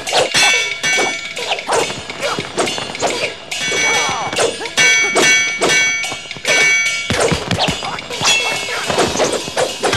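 Film fight sound effects: wooden spear shafts striking and whacking against each other in quick, continuous blows. Around the middle comes a run of bright, ringing clangs.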